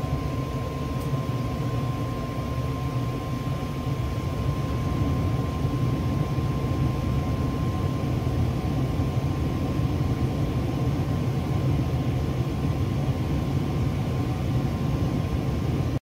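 Old gas furnace running on a heat call, its burner and blower making a steady low rumble, with a thin steady high whine over it.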